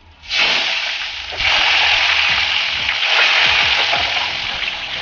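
Potato cubes dropped into hot oil in a steel kadai, sizzling loudly the moment they hit, with a second, stronger surge of sizzling about a second and a half in as more go in.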